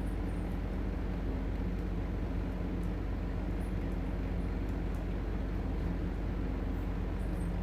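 Steady low hum with a faint hiss, unchanging throughout, with no distinct clicks or knocks.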